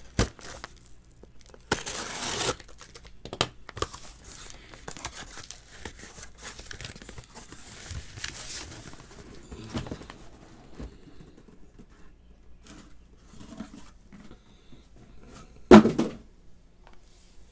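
Cardboard shipping case being handled: a stretch of tearing and rustling about two seconds in, scattered clicks and knocks as the case is moved, and one loud thump near the end.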